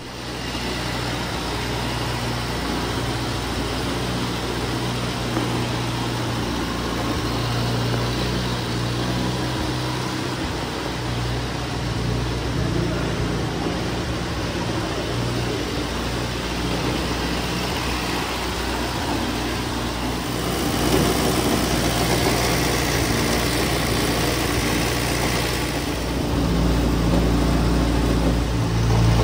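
A 1931 Austin Seven's small four-cylinder side-valve engine idling steadily. It grows a little louder about two-thirds of the way through and again near the end.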